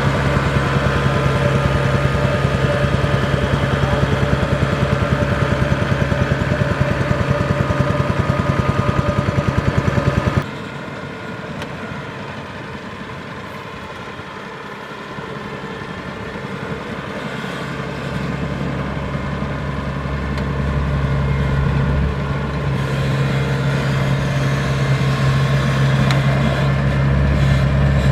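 Kubota DC-70 Plus combine harvester's diesel engine running steadily at working speed with a constant hum. About ten seconds in the sound drops off sharply, then slowly builds back up to full level.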